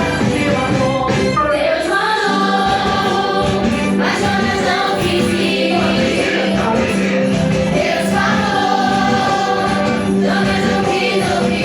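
A children's choir singing a Christian song over instrumental backing that holds a steady bass note.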